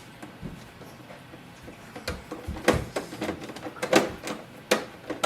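Plastic clicks and knocks as parts of an HP DeskJet 4100 printer are handled and fitted back into place. A few soft knocks come first, then sharp clicks follow thick and fast from about two seconds in.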